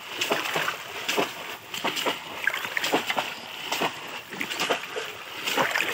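Splashing in shallow water as two bamboo polo fish traps are plunged down again and again, with sloshing from wading legs. Short, sharp splashes come irregularly, about two a second.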